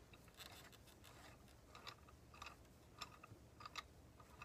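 Near silence, with a few faint, short clicks scattered through it.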